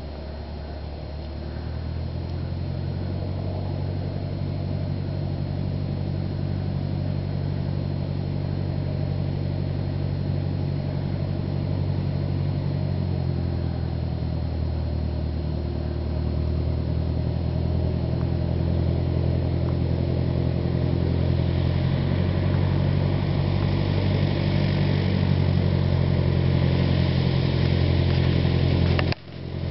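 Piston engine and propeller of a single-engine high-wing light aircraft running at low taxi power after landing, a steady engine note that grows gradually louder as the plane approaches, with a slight drop in pitch about halfway through.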